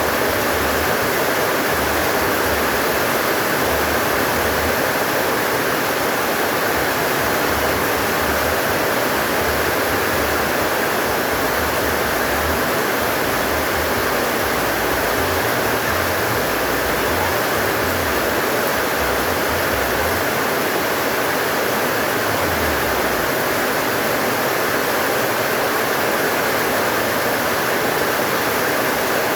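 Heavy rain pouring steadily, with a low, uneven rumble of strong wind gusting under it.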